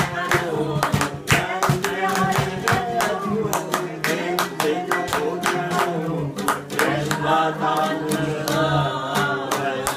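A man sings to his own oud playing while other voices join in and hands clap steadily in time.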